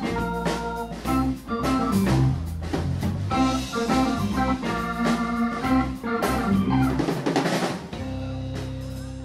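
Live band playing an instrumental funk groove: drum kit, organ from a stage keyboard, electric guitars and bass guitar. About eight seconds in the drums thin out and the band settles onto a sustained chord.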